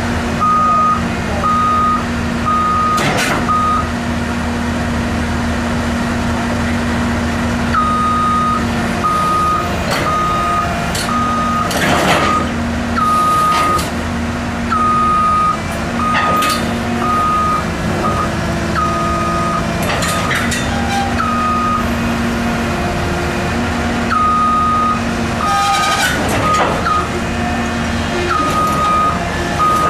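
Cat 319D LN hydraulic excavator's diesel engine running under load while its tracks crawl up a steel ramp, with a hydraulic hum that comes and goes and several sharp metal clanks. A backup-style travel alarm beeps in short runs of even beeps that stop and start as the tracks move and pause.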